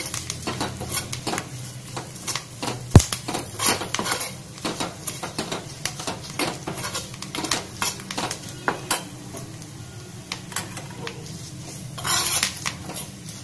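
Steel spoon scraping and clinking against a small steel pan while spice tempering is stirred, with a light sizzle of the hot oil underneath. One sharp clink about three seconds in, and a brief louder hiss near the end.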